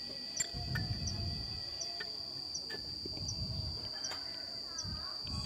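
Faint metal clicks and low knocks from valve springs on a car cylinder head being pressed down by hand with a length of pipe to free the valve keepers. Under them runs a steady high-pitched insect drone with a short chirp about every three-quarters of a second.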